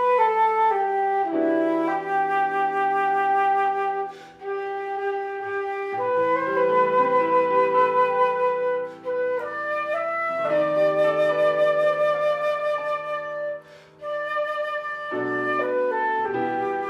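Slow instrumental music: a flute plays a melody of long held notes over a lower sustained accompaniment, with two short breaks between phrases.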